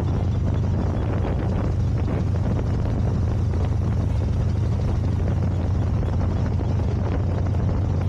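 2007 Harley-Davidson FXDC's Twin Cam 96 V-twin running steadily at highway cruising speed, with wind rushing over the microphone.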